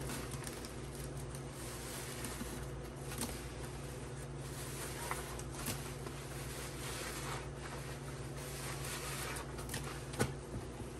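Wet sponge being squeezed and wrung in foamy cleanser paste in a plastic tub: a steady wet crackle and squelch with scattered small pops, and a sharper click near the end.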